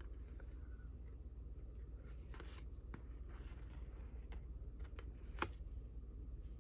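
Old paper valentine cards being handled: faint rustling and light paper taps, with one sharper tap about five and a half seconds in.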